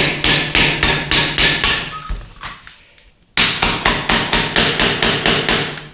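Rapid hammer blows on the metal housing of a water pump being taken apart, about five strikes a second in two runs separated by a pause of about a second.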